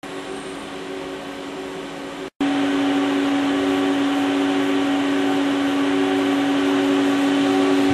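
Mori Seiki ZL-15 CNC lathe running under power: a steady machine hum with a few held tones. It cuts out for an instant a little over two seconds in, then comes back louder and steady.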